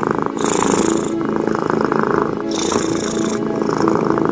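Very loud, shrill cat purring: a steady rattling drone that changes tone with each breath in and out, about one breath every two seconds.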